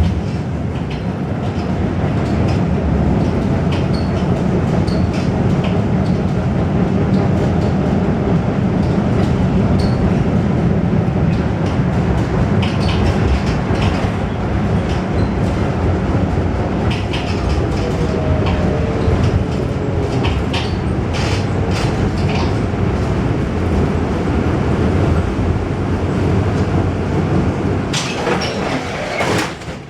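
Ageing tramcar running over rough track, heard from inside: a steady rumble with scattered clicks and knocks from the rails and wheels. A louder burst of rattling comes just before the end.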